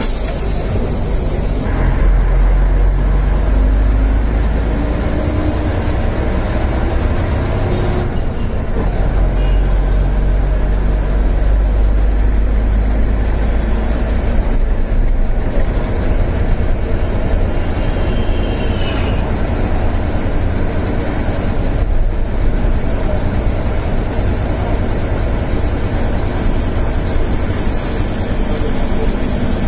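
City bus engine and road noise heard from inside the cabin near the front: a loud, steady low drone as the bus drives along.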